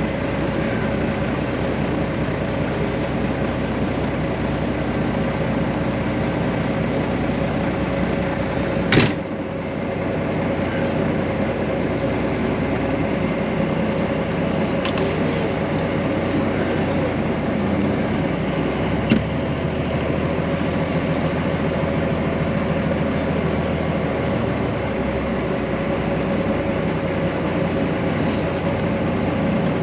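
A truck's engine running steadily, heard from inside the cab, with a sharp click about nine seconds in and a fainter one about ten seconds later.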